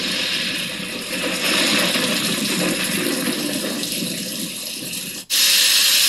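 A small white noise machine's speaker playing its thunder sound: a steady rushing noise with low rumbles swelling and fading. About five seconds in it cuts out for an instant and switches to an even, brighter white noise hiss.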